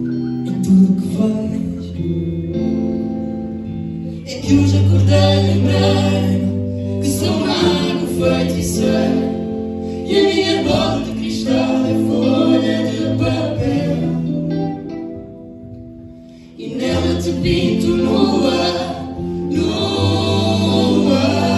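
Live band playing a song, with several voices singing together over electric guitar, keyboard and drums. About fifteen seconds in the music drops quieter for a moment, then comes back in full.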